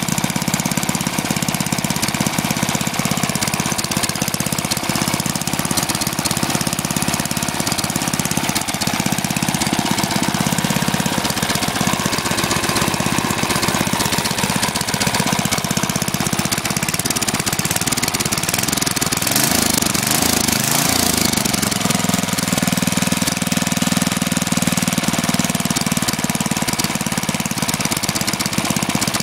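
Freshly rebuilt Tecumseh HM100 single-cylinder four-stroke engine running on its first test run, with a fast, steady firing beat. Its speed shifts briefly about two-thirds of the way through, then settles again.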